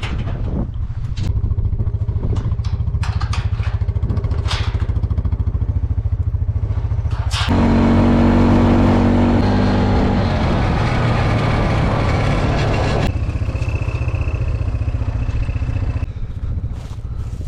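A vehicle engine running steadily, with a few clicks and clatter in the first seconds. The engine gets louder from about seven and a half to thirteen seconds in, then settles back.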